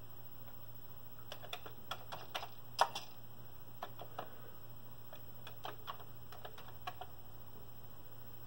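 Keystrokes on a Commodore VIC-20 keyboard: a run of separate, irregular key clicks as a short line is typed, with one louder keypress about three seconds in.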